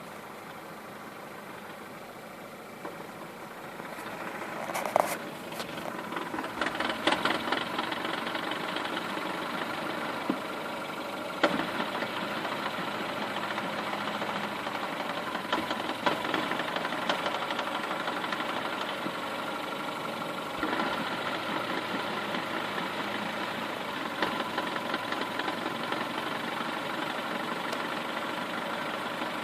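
Skoda Octavia A7 idling, with a knock from its manual gearbox at idle. Sharp knocks stand out now and then over the steady running.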